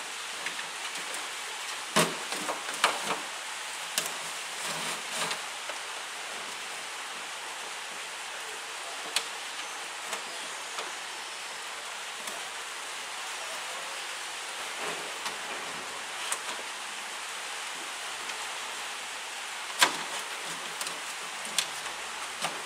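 Scattered light clicks and knocks of a car's wiper motor wiring being worked through a rubber grommet in the tailgate, loudest about two seconds in and near the end, over a steady hiss.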